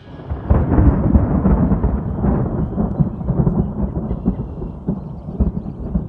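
A roll of thunder: a deep rumble that swells about half a second in, is loudest over the next second or so, then slowly dies away in uneven rolls.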